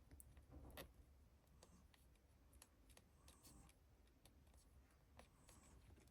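Near silence: faint room tone with scattered soft clicks.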